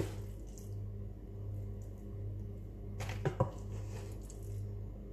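Low steady hum with a slow pulse, and a brief cluster of soft knocks and scrapes about three seconds in from a wooden spoon spreading chicken filling over rolled bread dough.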